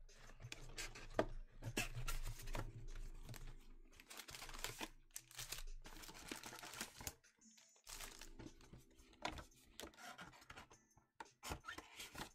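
Cardboard trading-card hobby box (Panini Select Euro 2020) being torn open by hand: irregular ripping and scraping of card, mixed with the crinkle of foil card packs being handled.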